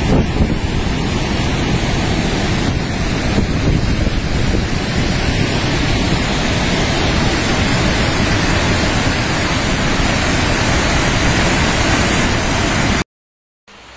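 Floodwater rushing in a swollen river channel, a loud steady roar of churning water. It cuts off abruptly near the end, followed by a brief silence and a much fainter steady hiss.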